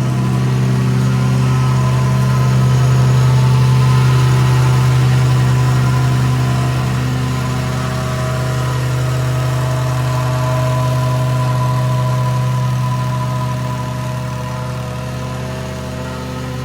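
An engine running steadily at a constant speed, with no rise or fall in revs.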